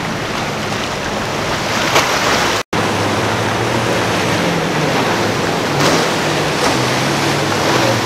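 Large center-console boat with five outboard engines running fast through rough inlet water: a steady low engine drone under the rush of wake and waves. The sound cuts out completely for an instant a little under three seconds in, and the drone is stronger afterwards.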